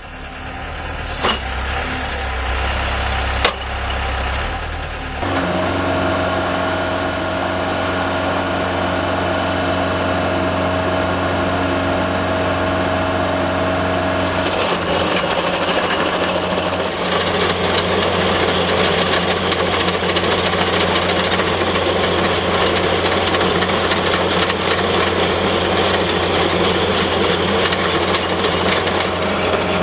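Skid-steer loader's engine running with a hydraulic cold planer attachment: the planer drum spins up about five seconds in with a steady whine, and from about fifteen seconds on it grinds into the pavement with a loud, continuous grinding noise over the engine.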